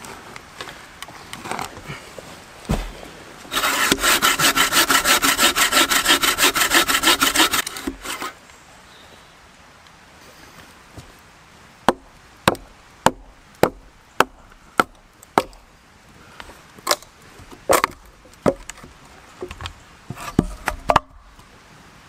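Wooden-framed bucksaw cutting into a log in fast, even back-and-forth strokes for about four seconds. After a pause come a dozen or so sharp knocks of a hatchet chopping and hewing a split slab of wood, roughing out a paddle blank.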